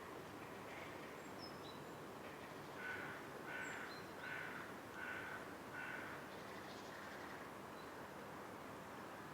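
A bird calls five times in a row, about one call every 0.7 seconds, starting about three seconds in, over a steady outdoor background hiss. A few short, high chirps from small birds come in between.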